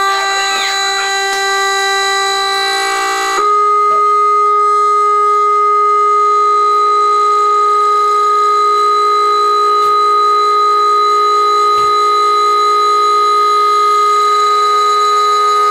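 Steady sine-wave tone driving a cymatics vibration rig, heard with a stack of overtones. About three and a half seconds in, the driving frequency steps slightly higher and the tone gets louder, then holds steady.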